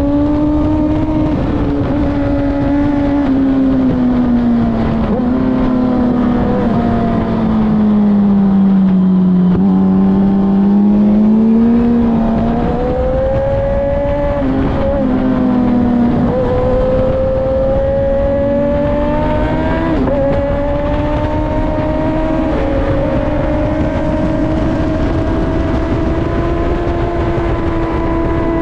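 Racing motorcycle engine at speed on a track, heard onboard. Its note sags to a low point about a third of the way in and climbs again, with a few abrupt pitch changes from gear shifts, over a steady rush of noise.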